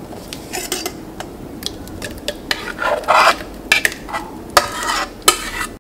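A thick chocolate biscuit-and-milk mixture being scraped out of a pan into a stainless steel mixer-grinder jar: a string of irregular scrapes and soft clinks of utensil on metal.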